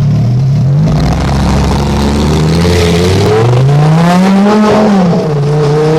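Lamborghini's naturally aspirated engine revving loudly: its pitch dips, climbs and holds, then rises sharply about two-thirds of the way through and falls back to a steady, raised rev.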